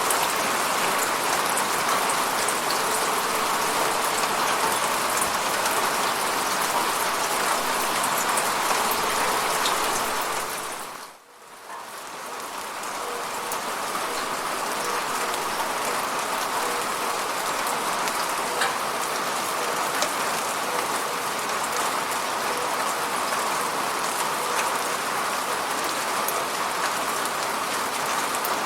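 Steady rain falling on an apartment window: an even hiss with scattered individual drop hits. About eleven seconds in, the sound dips almost to nothing and fades back up over a couple of seconds.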